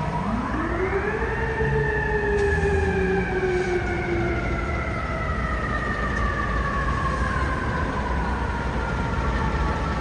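Fire engine's mechanical siren winding up sharply over about the first second, then slowly winding down in pitch for the rest of the time. A low engine and traffic rumble runs underneath.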